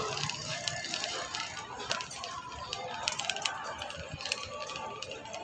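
Street ambience along a market lane, with faint distant activity and many scattered light clicks and taps.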